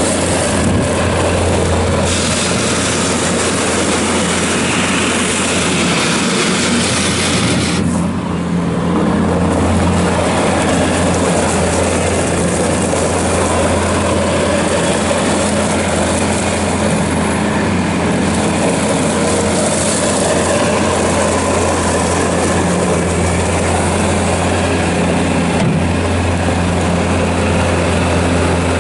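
Bobcat S590 skid steer loader's diesel engine running steadily at working throttle, a constant low hum with noise from the machine all around it.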